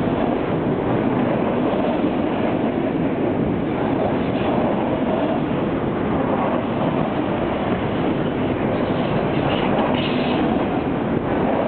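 Freight train of auto rack cars rolling past at close range: a steady noise of steel wheels running on the rails.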